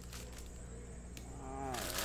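A low steady hum, a single sharp click about a second in, then near the end a short wordless murmur from a person's voice, its pitch bending up and down.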